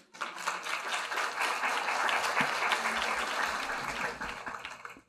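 Audience applauding: many hands clapping together, starting at once and dying away near the end.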